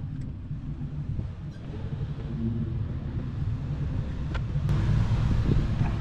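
Steady low rumble, with two faint clicks in quick succession a little past halfway.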